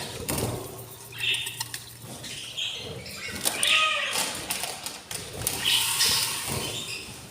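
Budgerigars chirping and chattering in short bursts, with scattered taps and knocks from the birds moving about.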